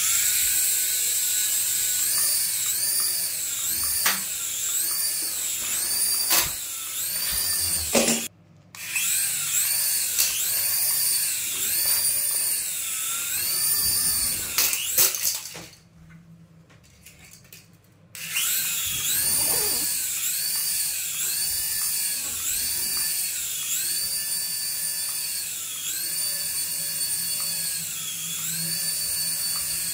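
Toy RC helicopter's small electric rotor motors whining at a high pitch, the pitch rising and falling again and again as the throttle changes. It stops briefly about eight seconds in and again for about two seconds just past the middle, with a few knocks along the way.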